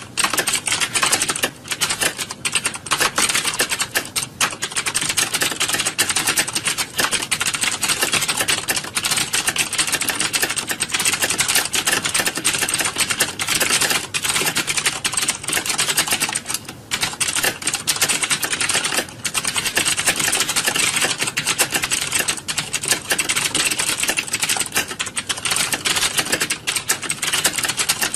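Many computer keyboards being typed on at once, a dense, unbroken clatter of fast key clicks like a typing-test exam hall.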